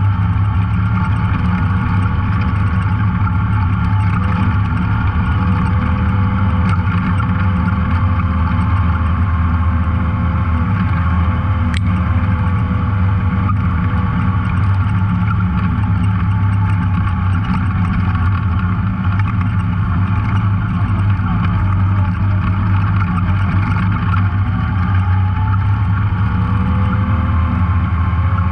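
Off-road vehicle engine running steadily under way on a trail, a loud, even low drone whose pitch drifts slightly up and down with the throttle.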